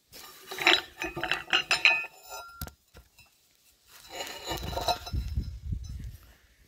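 Steel clinking and ringing as metal pieces are struck and handled: a quick clatter of light, ringing knocks in the first two seconds, then a duller rumbling shuffle of handling about four seconds in.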